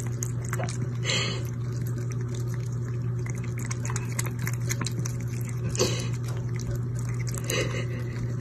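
Kitchen faucet running in a thin stream, with a steady low hum under it, as a cat laps and splashes at the water; three brief louder splashes about a second in, near six seconds and near the end.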